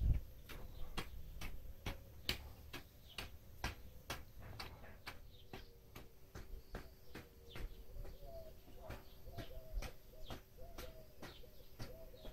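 Steady clicking, about two to three sharp ticks a second, with a bird cooing softly in the background from about eight seconds in.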